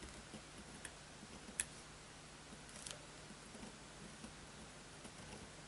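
A few faint clicks and ticks from a ceramic craft knife cutting through low-tack frisket masking film on a pastel board, the sharpest a little past one and a half seconds in, over a faint steady hum.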